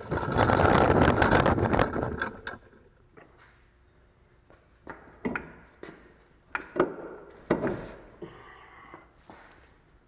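A loud rustling clatter for the first two seconds or so, then a handful of short, sharp knocks and clunks as a car's front steering knuckle and CV axle are handled.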